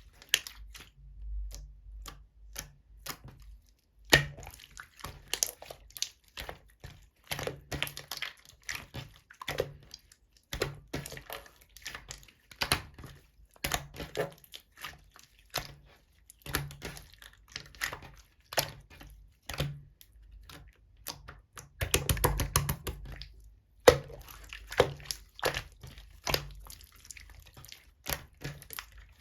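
Clear slime being squished and folded by hand, giving dense, irregular clicks and pops of trapped air. Nearly silent for the first few seconds, then busier in a stretch a little past the middle.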